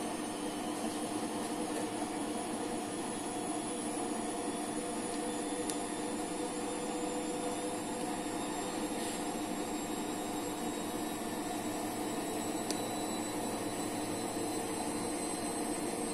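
A steady machine hum with a faint high whine, unchanging throughout.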